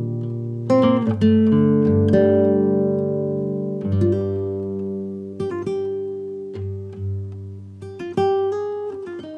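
Background music: a guitar playing plucked notes and chords, each ringing out and fading before the next.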